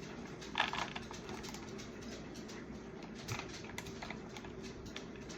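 Plastic-and-card toy blister package being opened by hand: faint crinkling and small clicks, with a short crackle under a second in and another about three seconds in.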